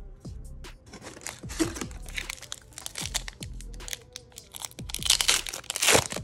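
Plastic wrapper of a Flesh and Blood booster pack crinkling and tearing open, loudest about five to six seconds in, over background music.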